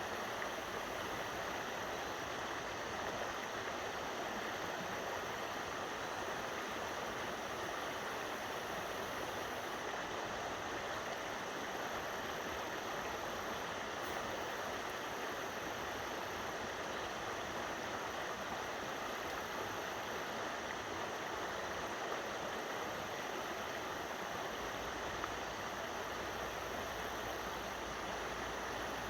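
Steady rush of creek water flowing over rocks below a dam, an even, unbroken wash.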